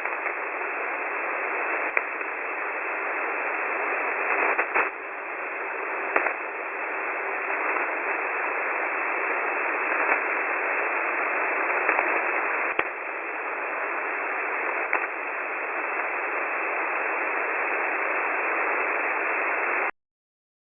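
Radio static: a steady, narrow-band hiss like an open voice radio channel with no one talking, with a few scattered crackles and clicks, cutting off suddenly near the end.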